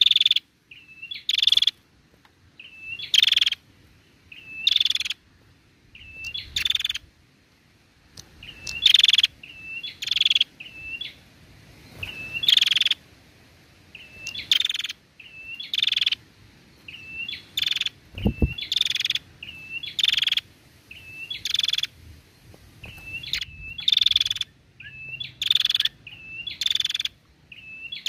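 Female prenjak (prinia) calling over and over: a short hooked note, then a harsh buzzing chatter, repeated about every one and a half seconds. A single low thump comes about eighteen seconds in.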